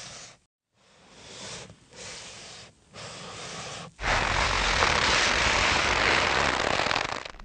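Foley of a knife slicing through a raw radish: several short noisy strokes with brief silent gaps between them, then a louder, steady rushing noise from about four seconds in.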